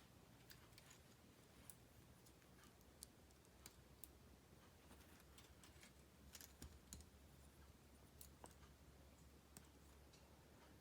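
Faint, irregular clicks of K'nex plastic pieces being snapped together as seats are clipped onto the ride's wheel.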